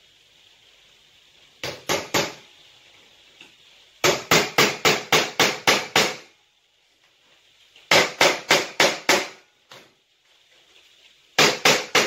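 Hammer blows driving a screw through an old thin metal tin tray to punch holes in it. Three blows, then three quick runs of rapid blows, about four a second, with short pauses between.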